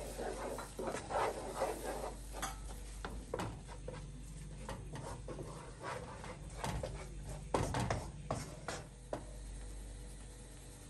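Wooden spoon stirring and scraping flour and oil around a frying pan, with a few sharper knocks and taps in the second half.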